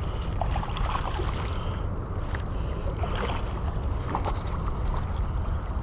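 Wind buffeting the microphone as a steady low rumble, with scattered light clicks from a spinning reel and rod being handled.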